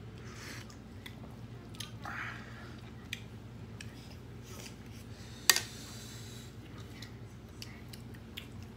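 Close eating sounds: a slurp of soup from a spoon near the start, then chewing with many small mouth clicks. About halfway through comes one sharp clack of a spoon against a ceramic bowl. A low steady hum runs underneath.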